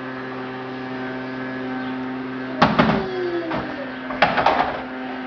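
Two short bursts of knocking and clattering, the first about two and a half seconds in and the second about a second and a half later, over a steady electrical hum.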